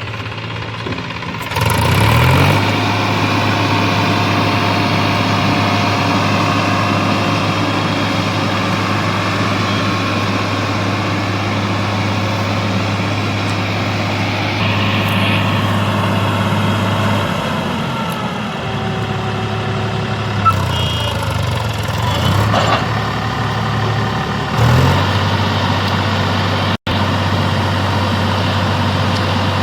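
Heavy diesel engine running steadily. Its speed picks up about two seconds in and rises and falls a few times in the second half.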